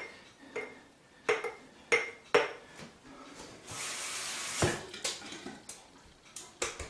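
Clinks and knocks of something scraping against a lathering bowl as thick shaving lather is scooped out into a cup, about six sharp taps with a short ring to each. A brief soft hiss about four seconds in.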